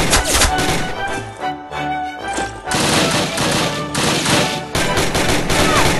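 Film score music mixed with loud bursts of gunfire, in stretches at the start, around three seconds in and again near the end.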